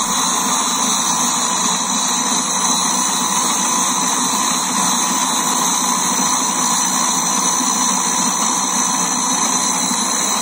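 Valve refacing machine grinding the face of an engine valve: the spinning valve runs against the abrasive wheel with a steady hiss and a thin, steady whine. The valve face is being trued so it will seal on its seat.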